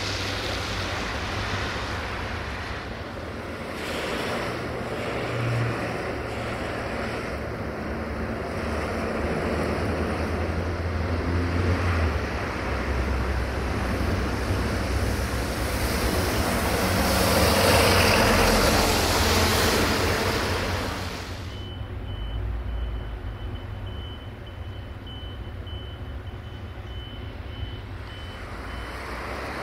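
Heavy trucks' diesel engines and tyre hiss passing on the road, loudest about two-thirds of the way through. After that the sound turns duller, and a string of short, evenly spaced high beeps carries on to near the end.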